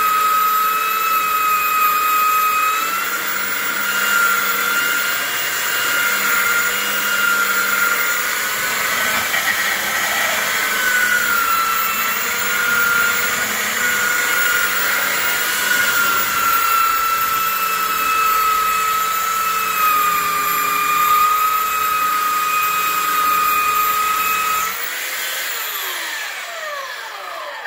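Skil handheld belt sander running while sanding a wooden seat, its high motor whine wavering slightly in pitch. About 25 seconds in it is switched off and winds down with a falling whine.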